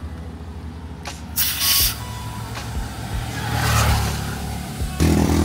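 Short bursts of air hissing from a car tyre's valve as an air-hose chuck is pressed onto it, the sharpest about a second and a half in, over a steady low rumble that gets louder near the end.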